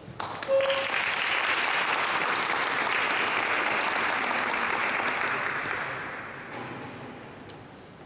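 Audience applauding: the clapping starts about half a second in, holds steady, then dies away over the last two seconds.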